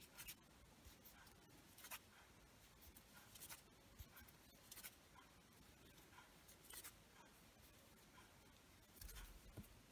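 Faint, irregular scratching and ticking of a crochet hook pulling yarn through stitches, working two single crochets into each stitch of an increase round.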